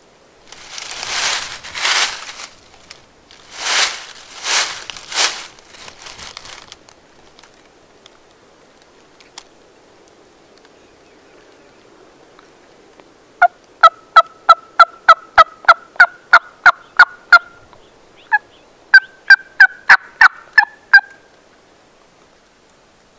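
Gould's wild turkey gobbling twice, each gobble a rattling burst lasting a couple of seconds. About halfway through come two runs of short, sharp, evenly spaced turkey yelp notes, about four a second.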